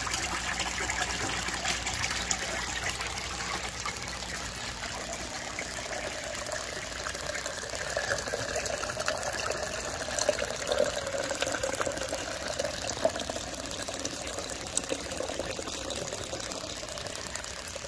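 Water running steadily through a 1.5-inch aquaponics U-siphon and pouring from its outlet pipe into the fish tank. This is the siphon's normal flow once the siphon box has emptied, before the siphon breaks.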